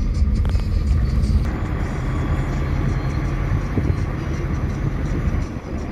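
Steady low rumble of engine and tyre noise from a car driving along a street, heard from inside the moving car, dipping briefly near the end.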